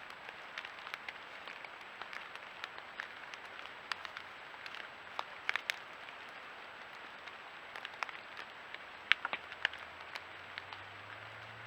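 Outdoor background picked up by a trail camera's microphone: a steady hiss scattered with light ticks and crackles, with a faint high electronic whine throughout. A low hum comes in near the end.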